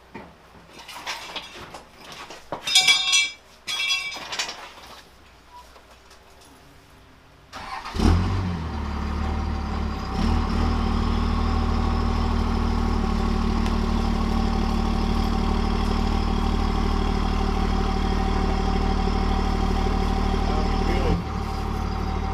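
A few metal clanks and a short jingling rattle, then about eight seconds in a vehicle engine starts and runs steadily. It gets louder a couple of seconds later and drops back about a second before the end.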